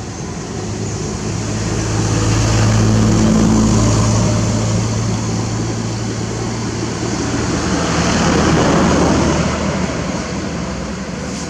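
A low engine hum with a steady pitch that swells twice, peaking about three seconds in and again about eight seconds in, like motor vehicles passing.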